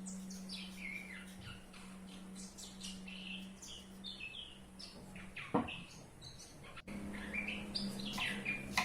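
Small birds chirping and twittering over a steady low hum, with a single sharp knock about five and a half seconds in.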